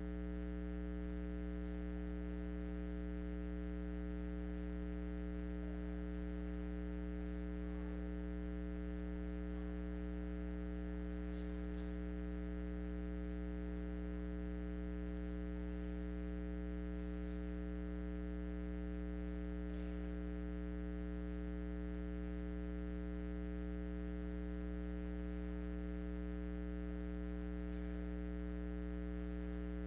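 Steady electrical mains hum with a ladder of overtones, unchanging throughout, with a few faint ticks underneath.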